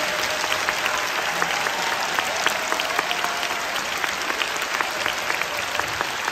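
Concert hall audience applauding: dense, steady clapping from many hands.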